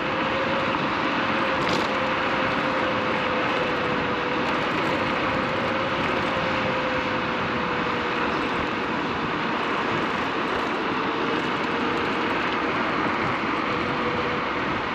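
Inmotion RS electric scooter ridden at a steady speed: a steady motor whine over continuous wind and road noise.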